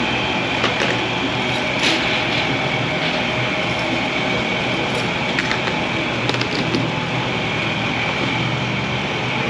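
Steady mechanical whirring noise with a constant high whine and a few faint clicks.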